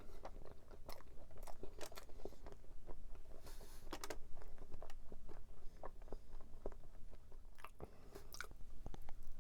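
A person biting and chewing crunchy tart pastry, many small crisp crunches one after another.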